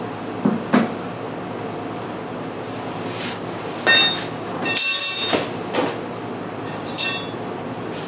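Hand work at an exposed honey bee hive: two light knocks just after the start, then short, loud, high-pitched squeaks or scrapes about four seconds in, a longer one just before five and a half seconds, and another near seven seconds, over a steady background hiss.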